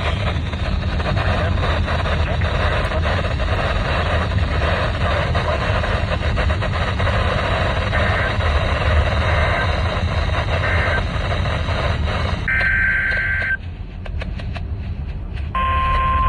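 Heavy radio static and hum from a weather radio reception, with faint high data bursts showing through it past the middle. Near the end a clear, brief burst of the digital alert header is followed by a short dip with crackling clicks. Then the steady single-pitch 1050 Hz NOAA Weather Radio warning alarm tone begins.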